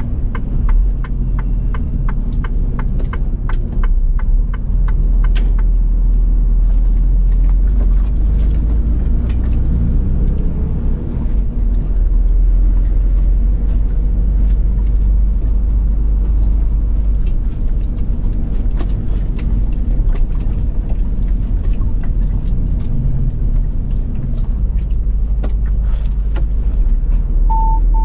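Lorry engine running steadily with a low rumble as the truck drives. For the first five seconds there is a quick, regular ticking, about three a second, and a short beep sounds near the end.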